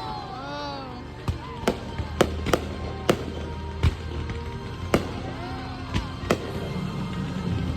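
Fireworks going off overhead: a string of about nine sharp bangs at uneven intervals, some only half a second apart.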